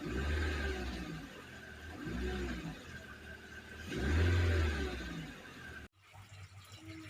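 Proton Saga BLM's engine idling and revved three times, about two seconds apart, each rev rising and falling back to idle; the sound cuts off abruptly near the end.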